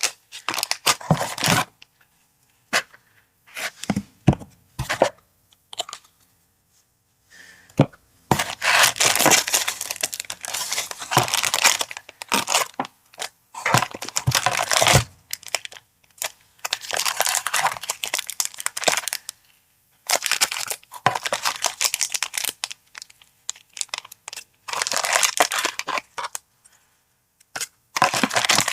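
Paper packaging being unwrapped and handled by hand: crinkling and tearing in irregular bursts, with sharp crackles and short pauses between.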